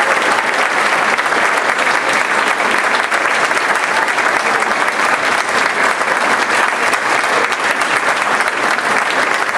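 Audience applauding: a dense, steady clatter of many hands clapping at once, holding at an even level throughout.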